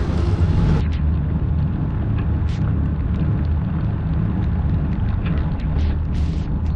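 Wind buffeting a GoPro Hero 9 action camera's microphone on a road bike climbing a wet road in the rain: a loud, steady low rumble with scattered faint ticks above it. The hiss on top drops away about a second in.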